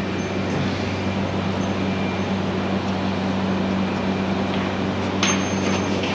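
Steady whir of a shop heater blowing, with a constant low hum, and a sharp metallic clink about five seconds in as the oil filter is worked loose with pliers.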